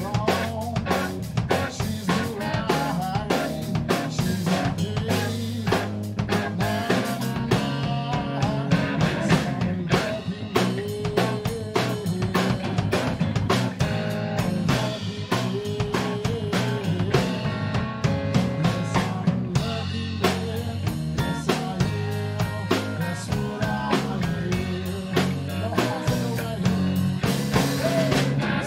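Live rock band playing an instrumental passage: a Stratocaster-style electric guitar plays bending lead lines over a drum kit's snare, kick and cymbals and a bass guitar.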